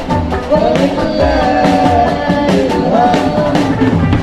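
Live band playing a religious song, a sung melody over rock-style guitar and drums with a steady beat.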